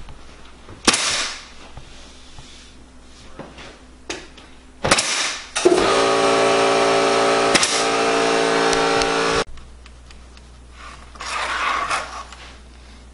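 A nail gun fastens trim to a window casing, each shot a short burst of hiss, three times, with a sharp click near the middle. A motor runs steadily for about four seconds in the middle and cuts off suddenly; it is the loudest thing here.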